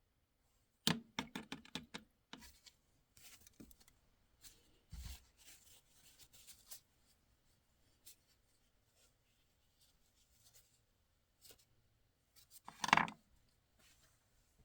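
Carving knife working white birch: a quick run of short cutting strokes, then scattered scrapes, and one louder knock or cut near the end.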